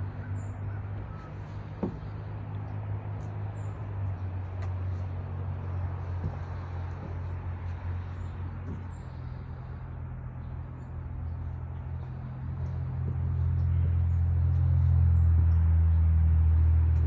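A steady low motor hum, louder over the last few seconds, with faint short high chirps scattered through it.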